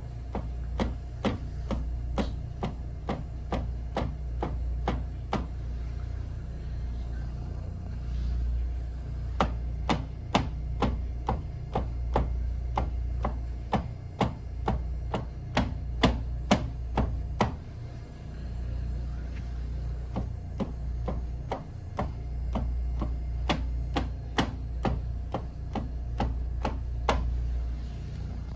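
Sharp knocks from a stockinged instep kicking a hard post again and again, in Kyokushin haisoku geri conditioning. The knocks come about three a second, pausing twice, over a steady low hum.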